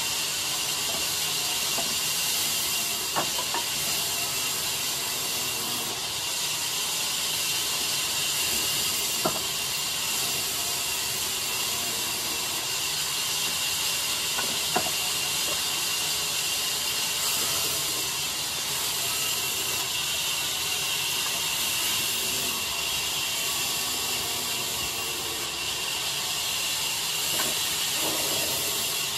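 Large vertical band saw running and cutting through timber: a steady high hiss from the blade, with faint machine hum beneath and three brief sharp clicks spread through it.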